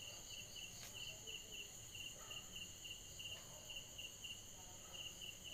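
Night insect chorus: a cricket chirping in short pulses about three times a second over a steady high-pitched insect trill. A faint click comes about a second in.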